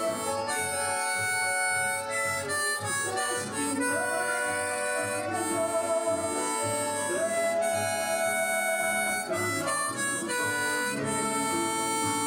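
Diatonic harmonica in C playing a melody in G, in second position (cross harp), with notes held for a second or two between shorter phrases.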